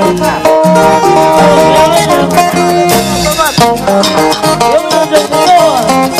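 A live band playing Latin American dance music loudly: melodic instrument lines over a steady beat.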